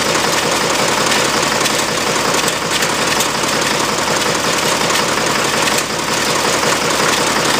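Oliver tractor's engine idling steadily, held on the hand throttle.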